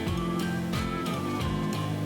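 Background music: a light instrumental with plucked guitar-like notes on a steady beat.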